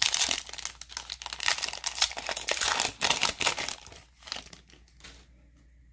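Plastic trading-card pack wrapper crinkling as it is torn open and pulled apart by hand. Dense crinkling for about three and a half seconds, then thinning to a few faint rustles.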